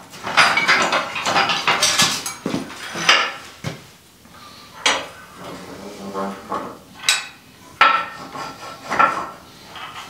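Steel sawmill track sections made of 3-by-3 angle iron clanking and scraping as they are tipped over and shifted. A dense clatter of metal knocks for the first three seconds, then single knocks with a short metallic ring every second or two.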